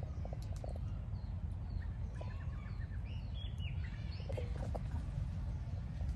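Small birds chirping and twittering over a steady low rumble, with a few brief lower-pitched sounds about half a second in and again about four and a half seconds in.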